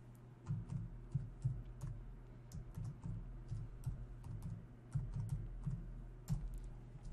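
Computer keyboard typing: a run of irregular key presses, some in quick bursts, with a sharper click near the end.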